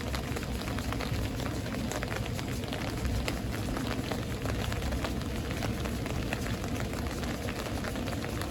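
Steady rain falling during a thunderstorm, with many separate drops ticking over a constant low wash of noise.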